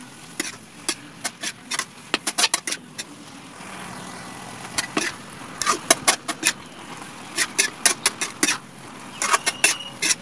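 Metal ladle scraping and clinking against a metal wok as shrimp and shredded green papaya are stir-fried: bunches of quick sharp scrapes with short pauses between them.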